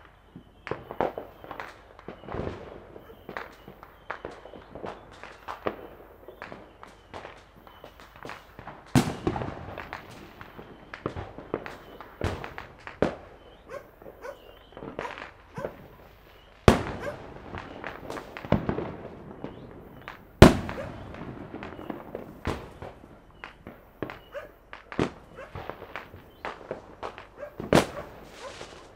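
Fireworks and firecrackers going off all around in an unbroken, irregular scatter of pops and bangs at different distances. Four much louder close reports stand out, each trailing off in a brief echo.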